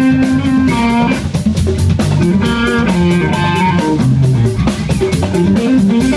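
Live funk-rock band playing: electric guitar lines over bass guitar and a drum kit keeping a steady beat.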